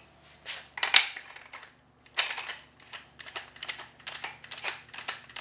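AB Suppressor Warthog being threaded onto a SilencerCo ASR muzzle mount on an AR-pattern rifle: a couple of sharp metal knocks as it is handled, then from about two seconds in a run of quick clicks, several a second, as it threads into place and locks.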